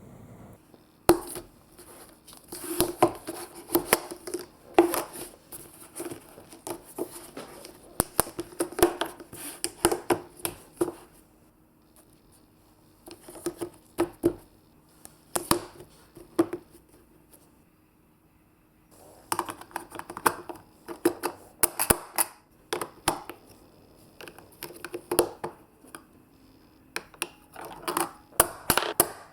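Marbles rolling and clattering down a plastic building-block marble run: rapid clicks and knocks in bursts, with short quiet gaps between runs.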